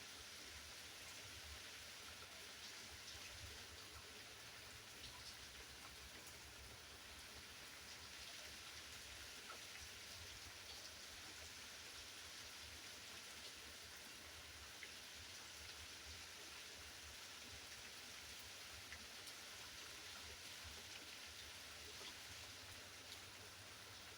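Faint, steady rain falling, with scattered small drop ticks.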